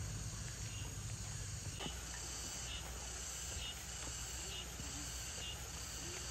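Insects calling: a steady high buzz with a short chirp repeating about once a second.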